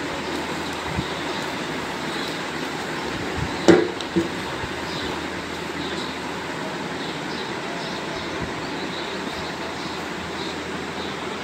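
Steady background hiss and rumble, with one sharp knock about four seconds in and a lighter one half a second later.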